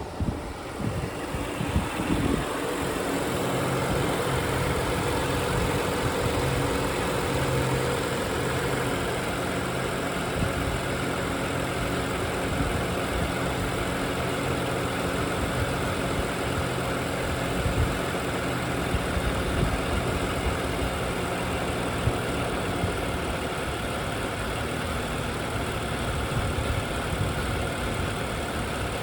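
BMW N55 turbocharged straight-six running steadily at idle, with its direct fuel injectors ticking loudly. The owner judges the engine healthy and hears no timing-chain noise.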